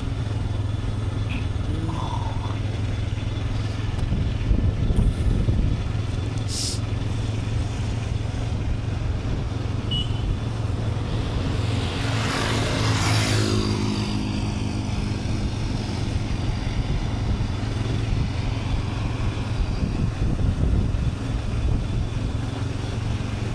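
Motorcycle engine running steadily at cruising speed, with wind and road rumble on the microphone. About twelve seconds in, a louder rushing sound swells and fades over a couple of seconds.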